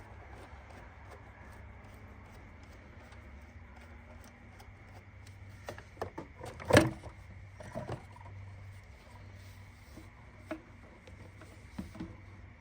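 Scattered knocks and rubbing as parts are handled in an engine bay, with one sharp knock about seven seconds in and a few lighter ones after it, over a steady low hum.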